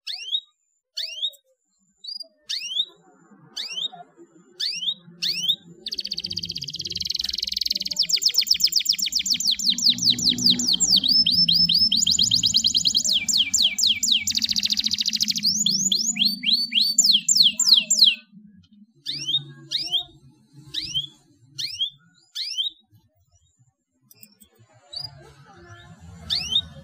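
Domestic canary chirping, with short falling chirps repeated about every two-thirds of a second. About six seconds in it breaks into a fast rolling trilled song lasting about twelve seconds, then goes back to single chirps.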